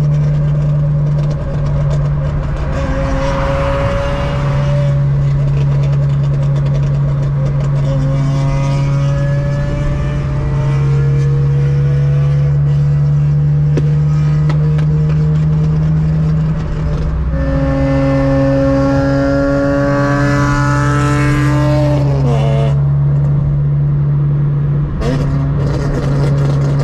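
BMW E46 M3's S54 straight-six being taken up through the revs in long, slowly rising pulls over a steady low drone. The third pull ends with the pitch falling sharply as the throttle is closed.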